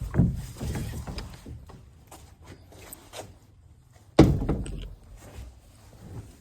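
Two sudden dull clunks about four seconds apart, the second the louder, with light handling clatter between them.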